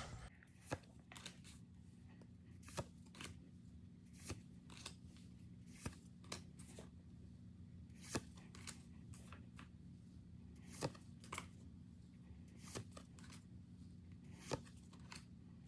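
Pokémon trading cards being flipped through one at a time from a freshly opened booster pack: faint, scattered card slides and taps, over a steady low hum.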